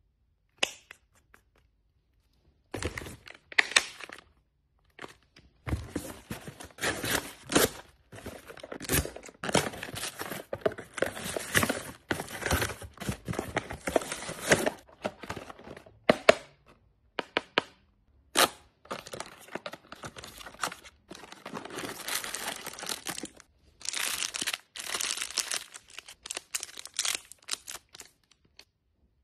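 Packaging being opened by hand: a cardboard shipping box torn open, with tape tearing and cardboard and plastic crinkling in long rustling stretches broken by short pauses. Near the end a plastic snack wrapper crinkles as it is unwrapped.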